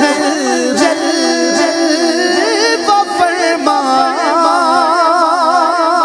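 Male voice singing a naat, an Urdu devotional poem, drawing out held notes in a wavering, ornamented melody without clear words.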